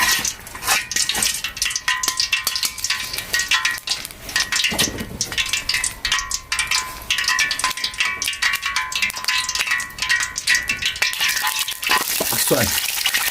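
Hot cooking oil, walnut oil and lard, sizzling and crackling in a small camping pot while a spatula stirs it, with many small irregular pops.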